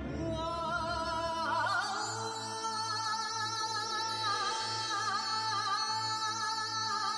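Background score: a solo voice sings long, wavering held notes over a sustained drone and a low pulsing tone.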